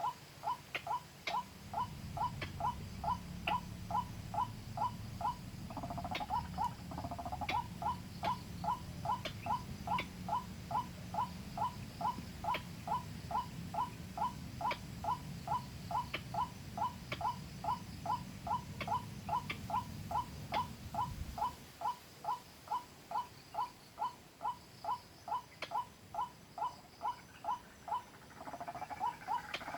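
White-breasted waterhen calls played back from a phone as a hunting lure: a fast, even series of short calls, about three a second. A second, lower call overlaps briefly about six seconds in and again at the end.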